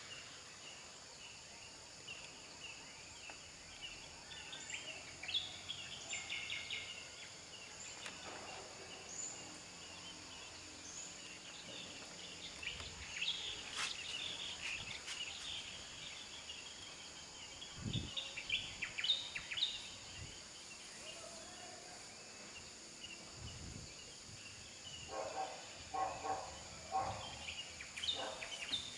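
Outdoor mountainside ambience of birds chirping over a steady high hiss. Near the end come a few seconds of distant shouting: sand miners calling out warnings to each other after a pyroclastic flow.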